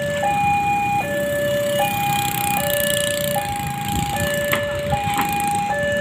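Railway level crossing warning alarm sounding its electronic two-tone signal, a higher and a lower note alternating about every 0.8 s, the warning of an approaching train. Motorbike engines run underneath.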